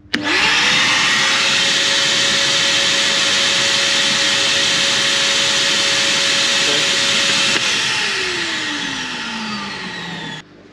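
Vacuum cleaner set to blow, switched on with a sharp start and its motor spinning up to a steady whine. About seven and a half seconds in it is switched off and the whine falls in pitch as the motor winds down.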